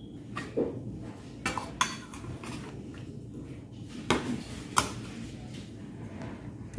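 Spoons clinking and scraping against a stainless steel mixing bowl as food is tossed. There are several sharp clinks, the loudest about four and five seconds in.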